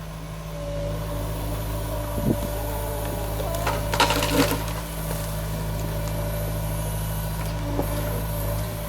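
Compact excavator's diesel engine running steadily under load, with wood cracking and splintering about four seconds in.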